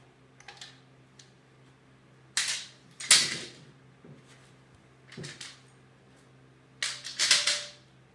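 Woodworking clamps being loosened and taken off a glued-up pine box: several sharp clacks and short rattles, the loudest about three seconds in and a quick cluster near the end, over a steady low hum.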